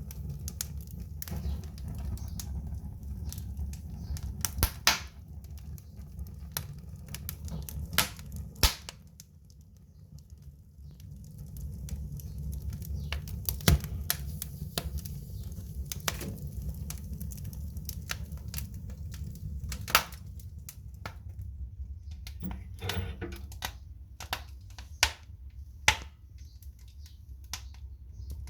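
Wood fire crackling, with irregular sharp pops, a handful of them much louder, over a steady low rumble.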